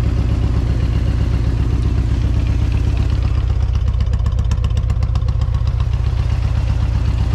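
Harley-Davidson Road Glide V-twin engine idling hot, its oil at about 200 degrees, with a steady low beat. A light, rapid ticking comes in over it for a few seconds in the middle.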